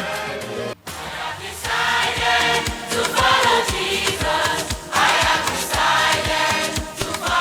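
Gospel music: a choir singing over a steady beat, coming in after a brief break in the sound about a second in.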